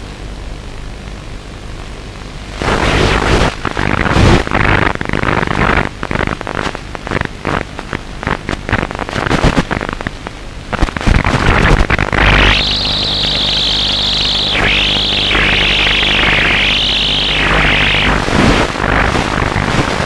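Electric motor of a radio-controlled FPV model whining and varying in pitch with throttle, over heavy wind buffeting and crackle on the onboard microphone. The buffeting comes in loud irregular gusts from a few seconds in; the high whine takes over about two-thirds of the way through, rising and falling several times.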